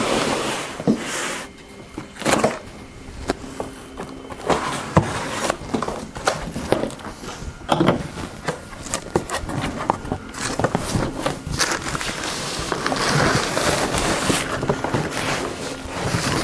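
Cardboard shipping box being opened by hand: scattered knocks, taps and rustles as the flaps are pulled open. In the second half comes a longer stretch of cardboard scraping and sliding as the outer box is lifted off the box inside.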